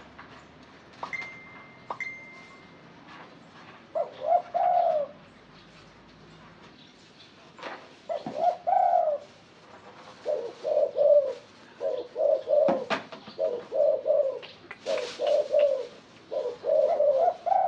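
Spotted dove cooing: two separate coo phrases, then from about halfway a quick run of repeated coos, several a second. A brief thin whistle sounds near the start.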